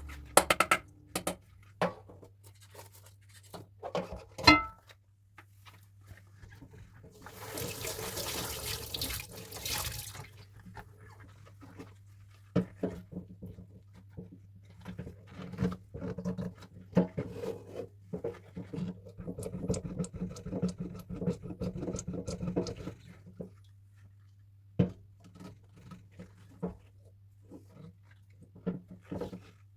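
Dishes being washed by hand at a sink: scattered clinks and knocks of dishes, a short burst of water about seven seconds in, then a long stretch of water and scrubbing with clinks that stops about 23 seconds in, over a faint steady low hum.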